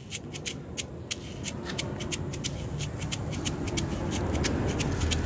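Rustling and irregular light clicks of movement through long grass, over a low rumble that grows steadily louder.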